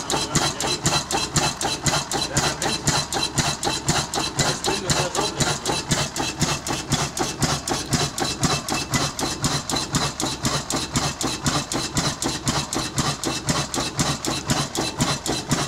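A 1905 MAN DM10 diesel engine running steadily, with a fast, even beat of several mechanical knocks a second.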